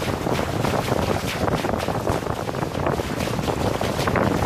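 Wind buffeting the microphone over water rushing and splashing against the hulls of a Hobie Getaway catamaran under sail, with many small splashes and slaps.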